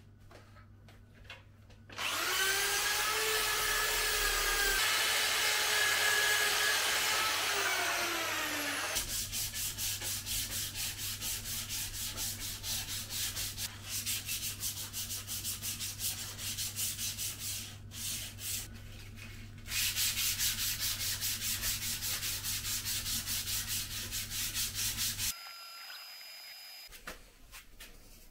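Sanding of a bare aluminium motorcycle swingarm. A power tool runs with a steady whine for about seven seconds, then slows and stops. Sandpaper is then rubbed quickly back and forth over the metal in even strokes, with a short pause about halfway through.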